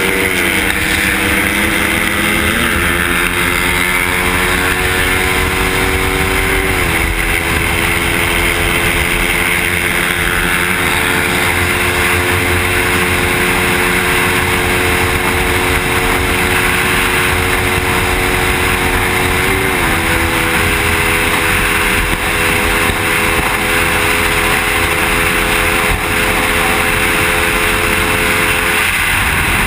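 Suzuki motorcycle's engine pulling at speed, heard from on the bike with wind rushing over the microphone. The engine note climbs slowly and drops sharply with each upshift, about a second in, around seven seconds, around twenty seconds and once more near the end.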